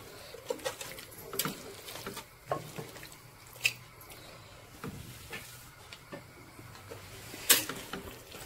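Metal spoon stirring thick mutton curry in a stainless steel pressure cooker: soft squelching of the masala-coated meat with scattered scrapes and clicks of the spoon against the pot, the sharpest click near the end.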